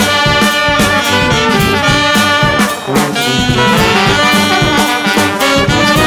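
Background music: an upbeat jazzy tune led by brass, with a steady beat.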